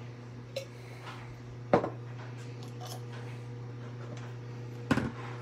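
Kitchen items handled on a countertop: one sharp clack about two seconds in and a few quicker clicks near the end, over a steady low hum.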